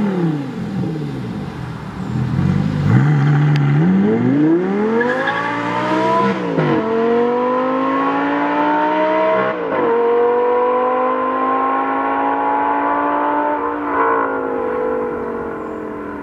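Audi R8 engine and exhaust: the revs fall and hold a low note for a couple of seconds, then it accelerates hard, the pitch climbing through the gears with upshifts about six and a half and nine and a half seconds in. The sound thins and fades near the end.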